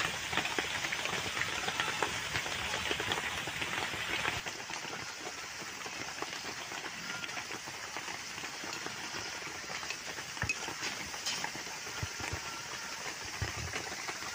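Flour-and-egg biscuits deep-frying in hot oil in an iron kadai: a steady crackling sizzle, dense and louder for the first four seconds, then a softer, even hiss with a few faint clicks.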